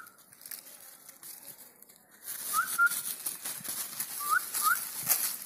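Puppies giving a few short, rising, squeaky whimpers, about four in all, with plastic bags crinkling under their paws from about two seconds in.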